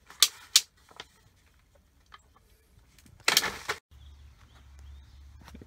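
Two sharp clicks in quick succession, then a fainter tap, then a brief rustling scrape about three seconds in. A low steady hum follows from about four seconds on.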